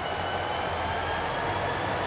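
Approaching diesel freight locomotives running under load, a deep engine rumble with a high turbocharger-like whine that slowly rises in pitch as the train draws closer and gets gradually louder.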